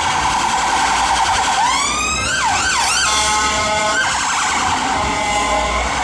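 Siren of a MERIT VW Transporter ambulance responding through traffic: quick sweeping glides about two seconds in, followed by a steady bullhorn blast lasting about a second.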